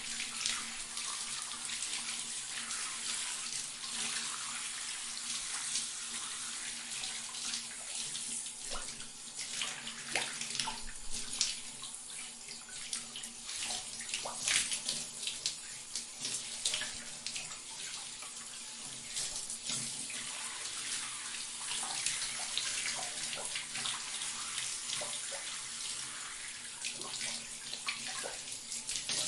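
Shower running: a steady hiss of water spray with irregular splashes.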